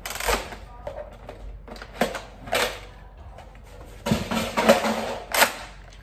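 Plastic clicks and knocks from a Nerf Fortnite Heavy SR blaster being handled as its magazine is taken out. A few single clicks come first, then a busier run of clatter about four seconds in, ending in a sharp click.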